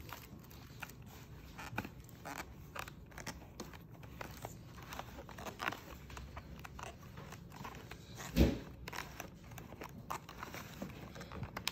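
A hospital dinner tray and its food containers being handled: faint scattered clicks, rustles and scrapes, with one louder bump about eight and a half seconds in.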